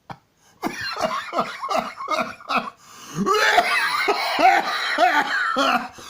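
A man laughing: a quick run of short laughs starting about half a second in, then longer, wavering laughter.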